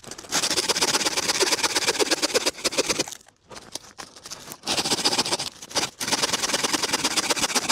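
Bow saw cutting through a dead branch, a fast rasp of back-and-forth strokes in long runs, pausing briefly about three seconds in and again twice near the end.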